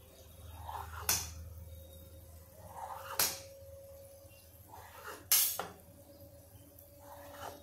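Kitchen knife cutting a sheet of rolled dough into strips on a wooden rolling board. There are three strokes about two seconds apart, each a soft drag ending in a sharp tap of the blade on the board, and the third is the loudest.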